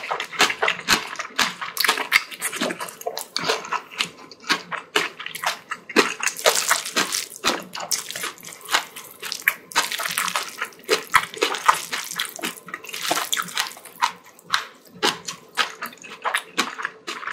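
Close-miked wet chewing of a mouthful of spicy bibimbap, a dense run of sharp smacks and clicks.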